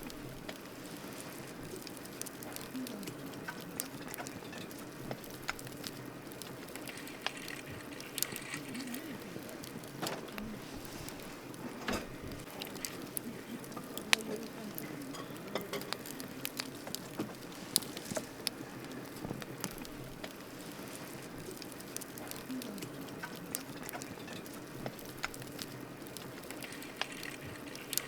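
Wood campfire burning: a steady low rush with scattered sharp pops and crackles, one louder pop about halfway through.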